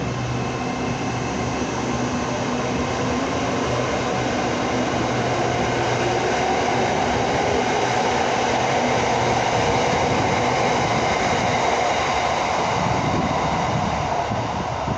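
Train running along rail with a steady low drone, then rolling wheel-and-rail noise that builds to its loudest about two-thirds of the way through.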